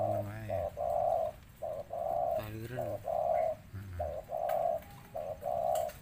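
Spotted doves cooing: a steady run of mellow coos, each about half a second long with short gaps between them, and fainter lower wavering notes underneath at times.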